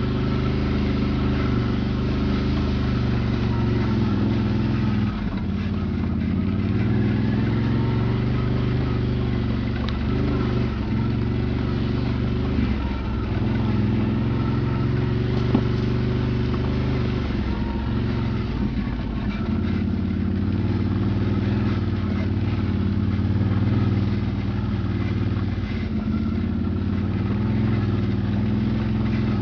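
Can-Am quad's engine running steadily as it is ridden over rough ground, with a few brief dips in engine pitch.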